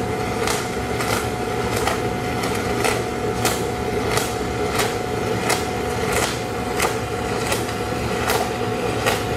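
A 3/4-inch Coromat F25 stick electrode burning at about 1,000 amps DC: a steady arc crackle and hiss with sharp pops about every two-thirds of a second, over a steady hum.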